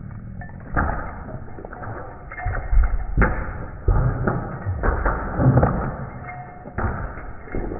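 A cat's paws thudding and scrabbling on a hardwood floor as it jumps, lands and dashes after a ball, in irregular bursts of thumps and scuffs.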